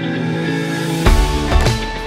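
Instrumental background music: held chords, then drums and a heavy bass come in about a second in.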